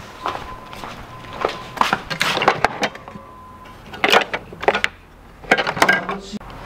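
Screwdrivers clattering against each other and the metal drawer of a tool chest as a Phillips screwdriver is rummaged for and pulled out, in three bursts of clicks and knocks. A faint steady high tone sounds through the first half.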